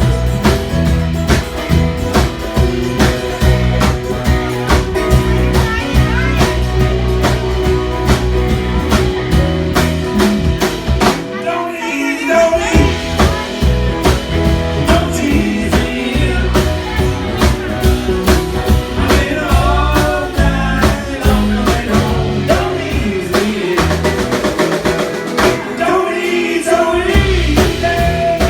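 Rock music from a band with a drum kit, guitar and singing. The bass and drums drop out briefly about halfway through, and singing comes in after that break.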